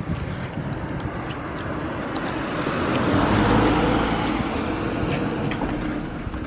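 Suzuki Grasstracker's single-cylinder engine running through an aftermarket Supertrapp 4-inch full exhaust, with no abnormal noises according to the seller. The sound swells to its loudest about halfway through and then eases off.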